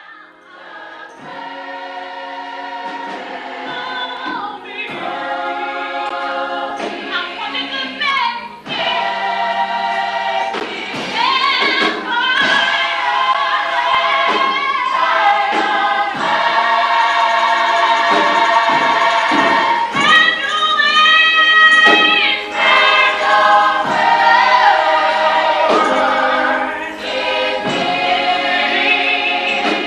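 Gospel church choir singing, many voices together. It starts soft and grows louder over the first several seconds.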